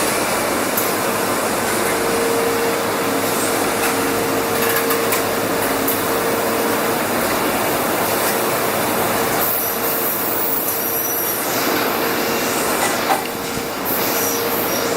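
Agie Model 250 HSS CNC wire EDM machine running a cut in carbide: a steady hiss with a constant hum underneath.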